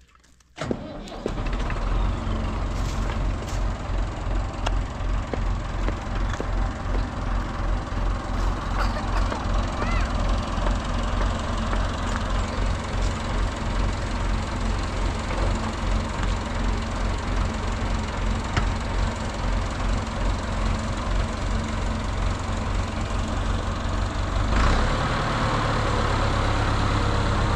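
Tractor engine running steadily with a low, pulsing beat; it starts abruptly about a second in, and its note changes after a knock about three seconds before the end.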